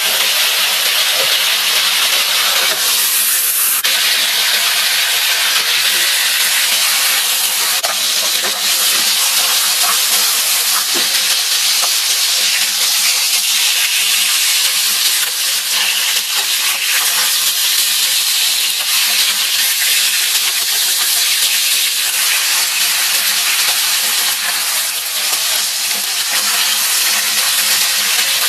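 Food frying in hot oil in a pan: a steady, loud sizzle, with a few faint clicks here and there.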